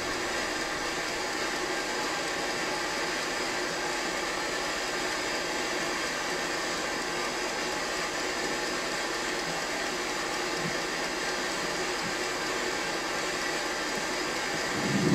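Steady hiss and hum of a running facial-treatment machine, with a short knock at the very end.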